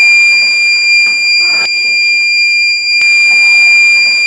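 The water level indicator's alarm buzzer sounding one loud, steady, high-pitched tone, with a few light clicks over it. The alarm signals that the water has reached the top of the tank.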